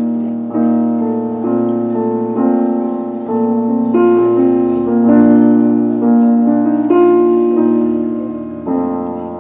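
Keyboard playing slow, sustained chords that change about once a second.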